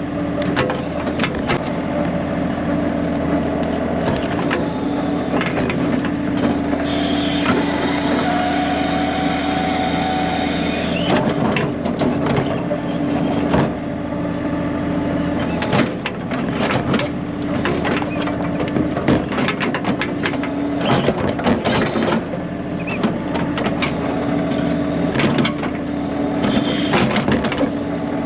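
John Deere 3039R compact tractor's diesel engine running steadily while the 385A backhoe digs, with many irregular knocks and cracks from the digging work.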